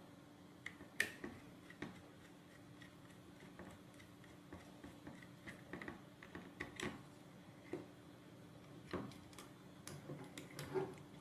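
Faint, irregular small clicks and ticks of a hand screwdriver turning small machine bolts into the metal mounting plate of a swivel caster wheel, with the parts knocking lightly as they are handled.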